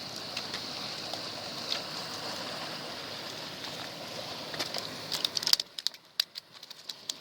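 Steady hiss of moving water. About five and a half seconds in, the hiss drops away and a string of sharp clicks and taps follows.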